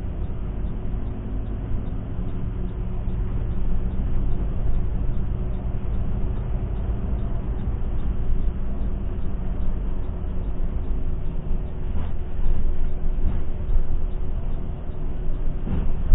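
Mercedes-Benz OH 1626 coach on the move: a steady diesel engine and road rumble with a constant hum, and a few light knocks about twelve seconds in and near the end.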